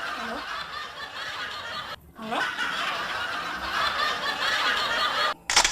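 A person making long, breathy vocal sounds in two stretches, split by a short break about two seconds in. A brief louder burst comes near the end.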